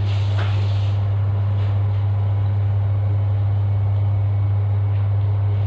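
A loud, steady low hum, with faint scraping of a utensil stirring pancake batter in a bowl.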